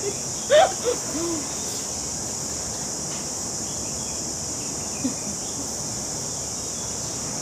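Insects droning steadily in a high-pitched, unbroken buzz. A short voice sound, an 'ooh'-like exclamation, rises and falls about half a second in and is the loudest moment.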